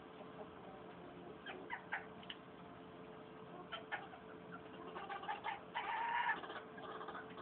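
Chickens clucking: a few short clucks, then a louder run of clucking about five seconds in. A faint steady hum runs underneath.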